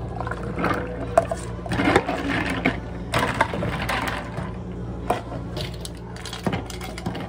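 A long spoon stirring ice in tall plastic cups of iced milk tea: rattling ice and scraping, with many sharp clicks of spoon and ice against the cup.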